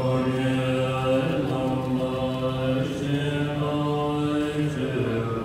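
Tibetan Buddhist monks chanting a prayer in unison in low voices, holding long notes that step to a new pitch every second or two.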